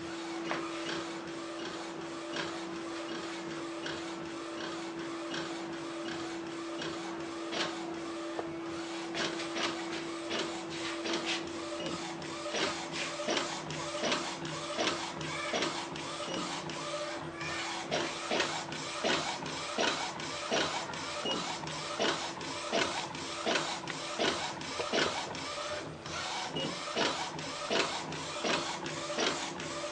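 WayPrinter A4 inkjet flatbed printer printing: the print-head carriage shuttles back and forth over a steady hum, with short clicks that come more often from about a third of the way in.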